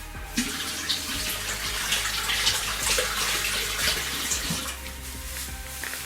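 Water running from a tap, starting about half a second in and easing off near the end.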